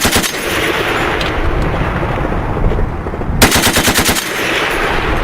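Browning M2 .50-calibre heavy machine gun firing short bursts: the last rounds of one burst right at the start, then a second burst of about eight rounds at an even rapid rate about three and a half seconds in, with steady noise between the bursts.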